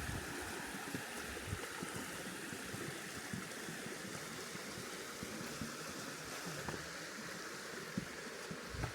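Stream water flowing steadily, with a few soft knocks, one near the end.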